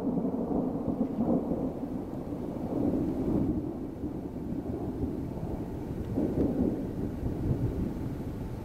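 Thunder rumbling low and continuously, swelling several times.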